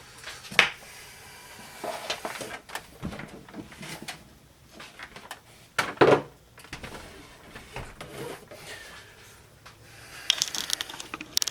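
Handling noise of objects being moved and set down: scattered knocks and clunks, the loudest about half a second in and about six seconds in, with rustling and clatter near the end.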